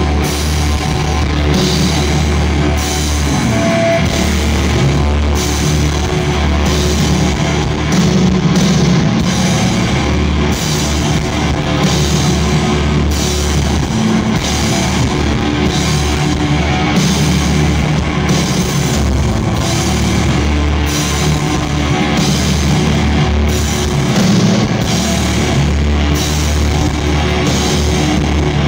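Live doom metal from a guitar-and-drums duo: a heavily distorted guitar through Marshall stacks holds a loud, steady low drone while the drums hit slowly, with a cymbal crash about every second and a half.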